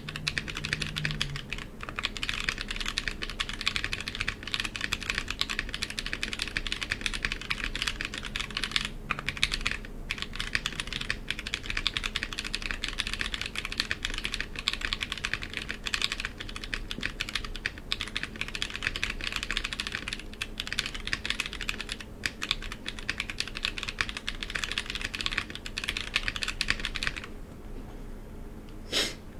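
Continuous fast typing on a custom 60% mechanical keyboard with lubed Holy Trash Panda tactile switches and GMK keycaps in a Klippe T case, brief pauses about nine and ten seconds in. The typing stops a couple of seconds before the end, with one short knock just before the end.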